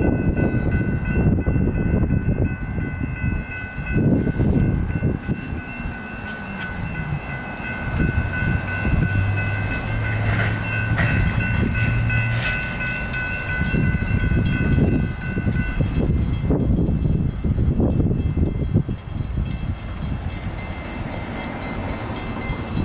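NEG electronic railroad crossing bell ringing steadily in a high, repeating ding as a train passes through the crossing with a heavy rumble. The bell grows fainter after about two-thirds of the way through.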